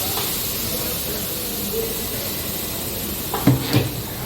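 Compressed air hissing steadily from a tyre-shop air line, with two short knocks near the end.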